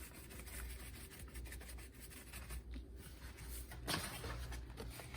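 Faint scratching and rustling of a dry cornmeal and flour dredge being worked in a bowl, with a short louder scrape about four seconds in.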